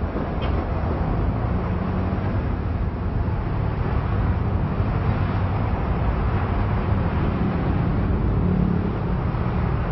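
Steady city street traffic noise, with buses' engines giving a low rumble under it.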